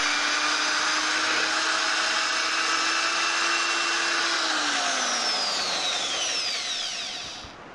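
A small motor whining steadily, then falling in pitch as it winds down from about four seconds in, and cutting off abruptly near the end.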